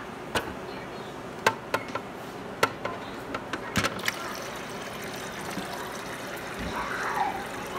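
A series of sharp clicks and taps at a refrigerator's door dispenser, then water from the dispenser trickling into a container, swelling near the end.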